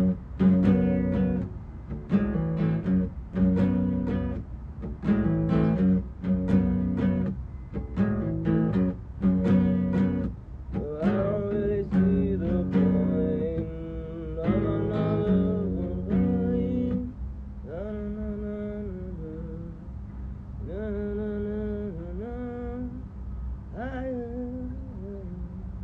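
Acoustic guitar strummed in chords, with regular strokes. From about the middle a man's voice sings along wordlessly, and in the second half the strumming drops back to quieter playing under the voice.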